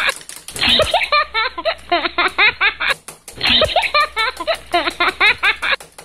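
High-pitched giggling laughter in two quick runs of rapid syllables, with a short break about three seconds in.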